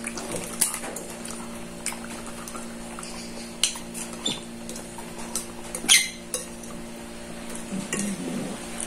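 Spoon clinking and scraping against a ceramic bowl and plate during a meal, with scattered sharp clicks, the loudest about six seconds in, over a steady hum.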